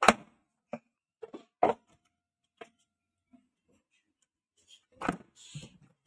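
Hard plastic knocks and clicks from a Toshiba canister vacuum cleaner's casing as its top cover is pressed shut and handled. The loudest snap comes right at the start, a few lighter taps follow over the next couple of seconds, and another cluster of knocks comes about five seconds in.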